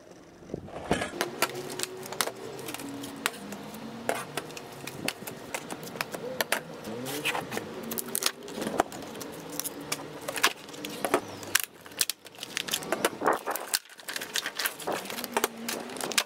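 Hard plastic blister packaging clicking and crackling, and 10-inch steel diamond tile saw blades clinking, as the blades are handled, unpacked and set down on a table, with many irregular sharp clicks. A low hum runs underneath and shifts in pitch a few times.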